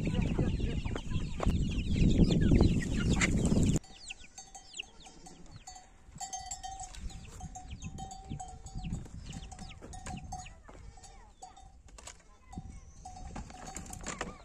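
Farmyard sound: a loud rumbling noise for the first few seconds that stops abruptly, then a livestock bell clinking on and off, with birds chirping and farm animals around.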